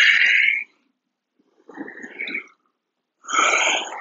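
A person's deep, audible breaths: a loud breath at the start, a softer one about two seconds in, and another loud one near the end.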